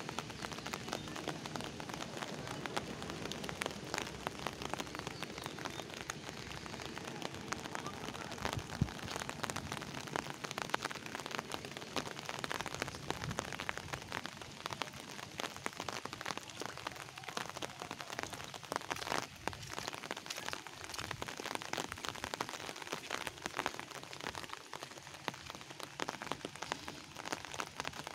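Steady rain falling on a flat concrete rooftop covered in standing water, with many separate drop hits heard as fine ticks.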